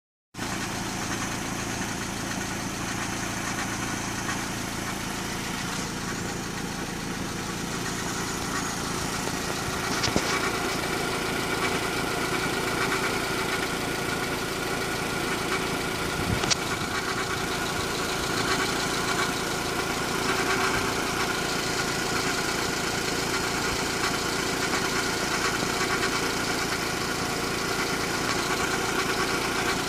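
1997 Honda Civic's D16Y8 1.6-litre four-cylinder engine idling steadily with a rapid tick you have to really pay attention to, which the owner links to a spark plug that keeps working loose in one cylinder. A couple of sharp clicks stand out, about ten and sixteen seconds in.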